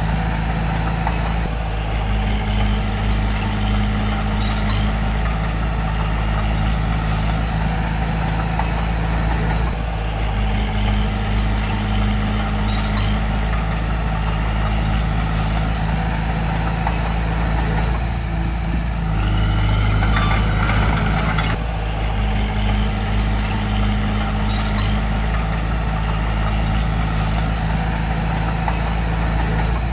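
Bulldozer's heavy diesel engine running steadily under load, with its pitch rising as it revs up about two-thirds of the way through.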